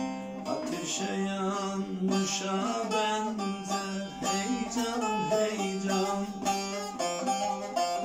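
Short-neck bağlama (kısa sap, tuned to C) played with a plectrum: a melody of quick picked notes over a steady ringing drone from the open strings.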